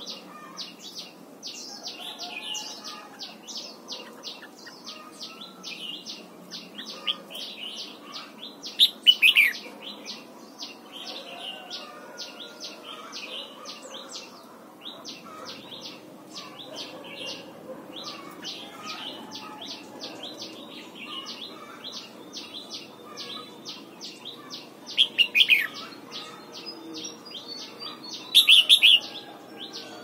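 Red-whiskered bulbul singing: three short, loud, down-sweeping song phrases, about 9 s in, about 25 s in and near the end, over a steady fast run of high chirps.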